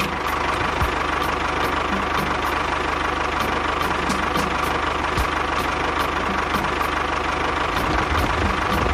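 Small electric motor of a miniature toy tractor or mixer running steadily, with a constant whine.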